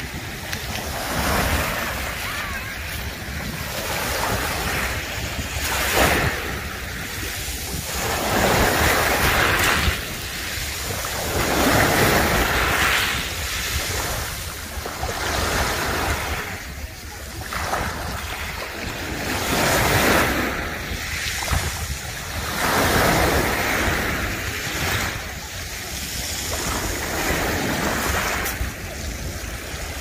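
Small sea waves washing onto a pebble beach, the surf swelling and falling back about every three seconds, with a steady low wind rumble on the microphone.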